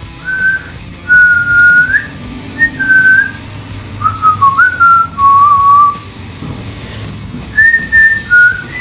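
A boy whistling through pursed lips: a string of clear single notes, some held and some short, stepping up and down in pitch like a simple tune, with a pause of about a second and a half a little past the middle.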